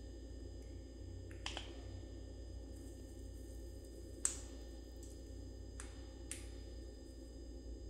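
A few sharp, separate clicks over a steady low hum, the loudest about four seconds in.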